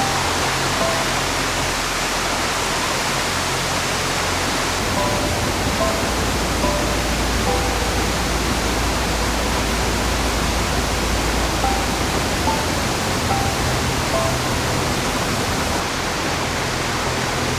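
The Oirase Stream, a mountain river, rushing steadily in an even wash of water noise, with sparse, soft musical notes laid over it.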